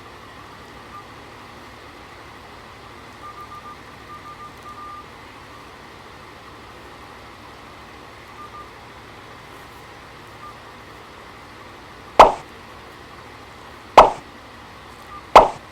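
A faint steady hiss with a few short, quiet beeps, then three loud sudden pops near the end, about a second and a half apart.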